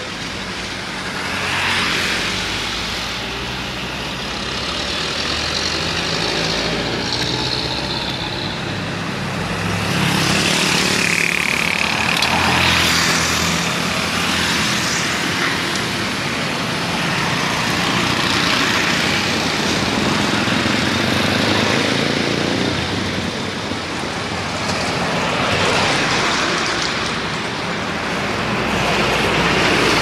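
Heavy road traffic passing close: trucks, a bus and motorcycles going by one after another, the engine and tyre noise swelling and fading every few seconds.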